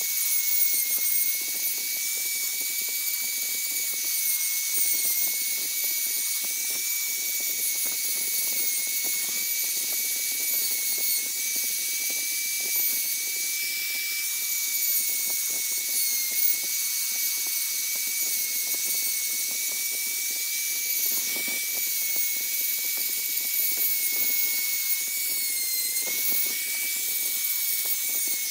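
High-speed electric rotary carving tool running continuously as it carves wood, a steady high-pitched whine that dips slightly in pitch a few times.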